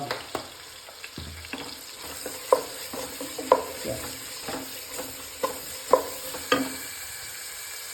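Sliced onions sizzling in hot oil and ghee in a pan as they are stirred, with a spoon knocking against the pan about six times.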